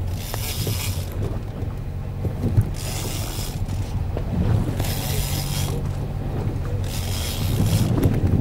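Boat engine running steadily with a low hum, while a hiss of water or wind swells and fades about every two seconds, with a few light knocks on deck.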